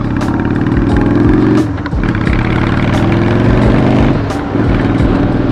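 Motorcycle engine accelerating up through the gears while riding. The revs climb, dip at a gear change just under two seconds in and again a little after four seconds, then climb once more.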